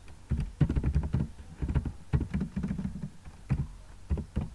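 Computer keyboard being typed on. There is a quick run of key clicks in the first second or so, then more spaced keystrokes through to the end.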